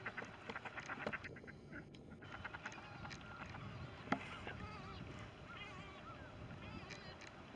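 Ducks and Canada geese calling: a quick run of short calls in the first two seconds, then drawn-out wavering calls. A single sharp click about four seconds in.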